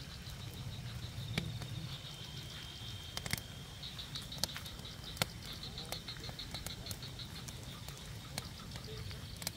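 Night animal chorus: a steady, high pulsing trill of calling frogs and insects, with irregular ticks of drizzle drops falling close by.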